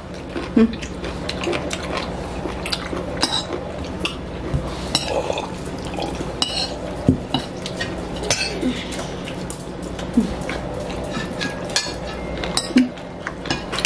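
Metal forks and spoons clinking and scraping against ceramic bowls while eating, in short irregular clicks throughout, over a steady low hum.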